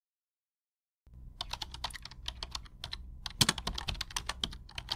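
Rapid, irregular clicking like typing on a keyboard, starting about a second in over a low hum.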